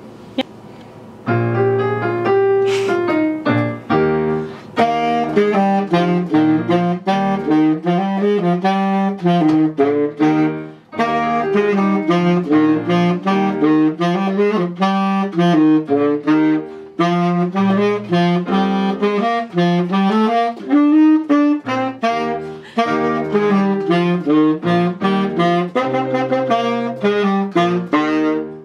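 Tenor saxophone played solo, a quick jazzy melodic line of many short notes with a few brief breaks.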